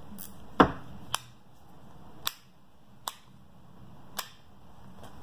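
A hard plastic fishing crankbait being handled, giving five sharp clicks spread a second or so apart; the first is a louder knock.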